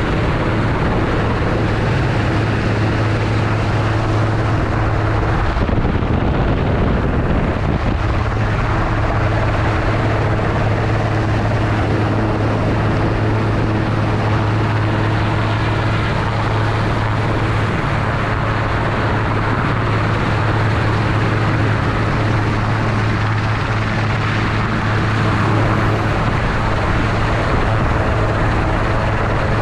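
Helicopter running steadily overhead while lifting a slung antenna section: a constant hum with a strong low tone under an even rushing noise.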